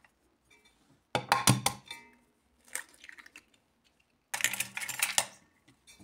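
Metal utensils and enamel bowls knocking and clinking as they are handled: a sharp clatter about a second in, a few faint ticks, then a longer rattle of clinks around four to five seconds.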